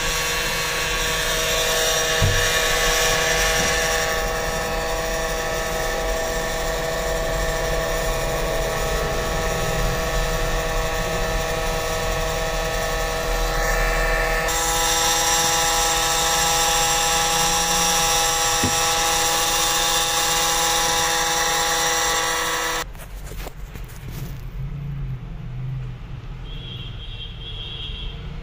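Automatic optical lens edging machine running with a steady motor whine that shifts pitch about fourteen seconds in, then cuts off abruptly a few seconds before the end, leaving a faint low hum.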